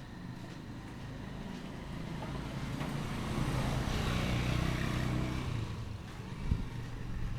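A motor vehicle passes by, its engine growing louder to a peak about halfway through, then fading. There is a short knock near the end.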